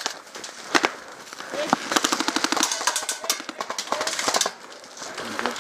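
Airsoft electric guns (AEGs) firing: a couple of single shots, then rapid full-auto bursts of sharp clicks lasting a few seconds. A short shout is heard among the shots.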